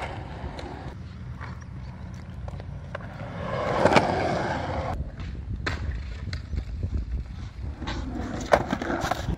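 Skateboard wheels rolling on concrete, a steady rumble that swells about four seconds in and ends in a sharp clack of the board. Several more clacks come near the end.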